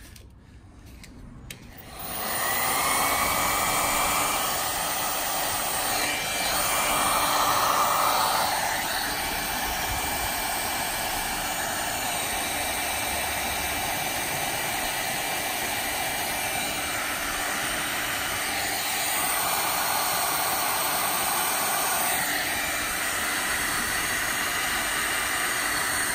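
Electric heat gun switched on about two seconds in, its fan whine rising as it spins up, then blowing steadily while it shrinks heat-shrink tubing over a spark plug wire.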